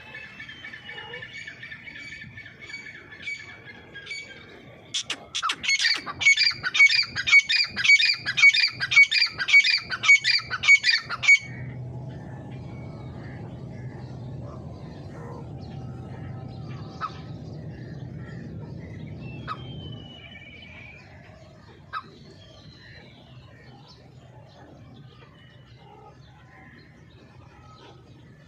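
Grey francolin (teetar) calling: a loud series of about a dozen ringing calls, roughly two a second, starting about five seconds in and stopping abruptly. Faint whistling comes before it, and a steady low hum with a few faint chirps follows.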